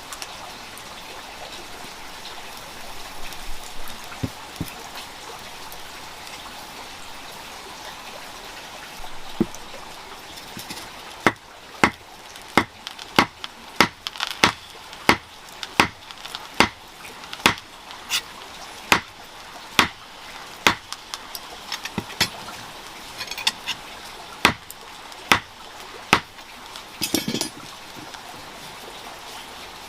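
A regular run of sharp strikes, about one a second for some fifteen seconds, over a steady background of running water.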